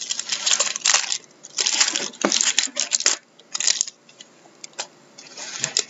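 Hockey trading cards being handled and slid against one another, a run of short rustling and scraping bursts with brief gaps between them.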